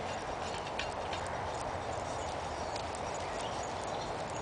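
CO2 cylinder being threaded by hand into an AIRROW arrow launcher: small scattered metal clicks and scrapes over a steady hiss.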